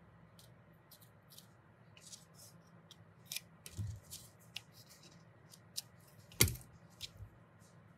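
Faint rustling and crinkling of cut paper petals being handled, with scattered light clicks. About six seconds in comes one louder, sharper knock: metal scissors laid down on the work surface.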